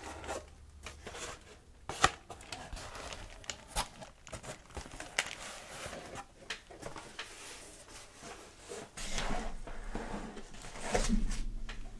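Cardboard box being opened and handled close to the microphone, its paper-shred filling crinkling and rustling, with sharp clicks and tearing sounds throughout. The handling is loudest about a second before the end.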